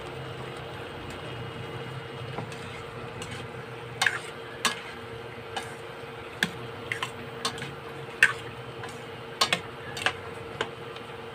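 Metal spoon stirring chicken livers and gizzards in a stainless steel pot, clinking and scraping against the pot's side in about a dozen irregular knocks from about four seconds in, over a steady hum.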